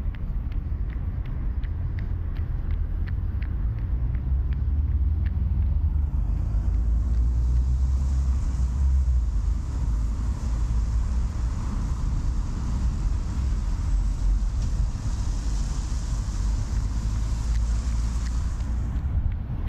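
Road traffic passing on a wet city street: a steady low rumble with a long tyre hiss from about six seconds in until near the end. In the first few seconds the runner's footsteps tick about three a second.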